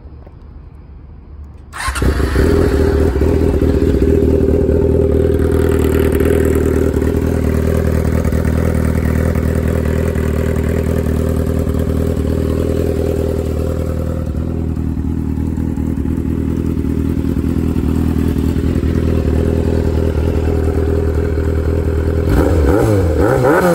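Motorcycle engine starting up about two seconds in, then idling steadily and loudly. Near the end it is blipped a few times, the pitch rising and falling with each rev.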